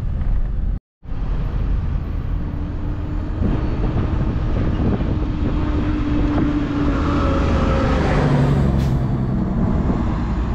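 Steady road and engine noise of a moving vehicle, heard from inside, with a heavy low rumble. It cuts out completely for a moment about a second in.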